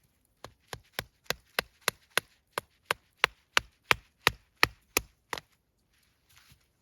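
Cold Steel Voyager XL folding knife chopping into wood: about sixteen sharp, evenly spaced strikes, roughly three a second, growing louder toward the middle and stopping shortly before the end.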